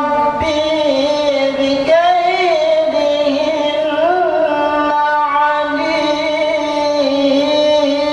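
A young man's voice chanting the Qur'an in melodic tilawah style, holding long notes with wavering, ornamented pitch, with brief breaks between phrases.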